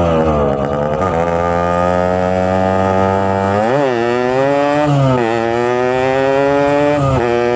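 Yamaha RX-King two-stroke single-cylinder motorcycle engine running steadily, with short throttle blips about four seconds in, about five seconds in, and near the end.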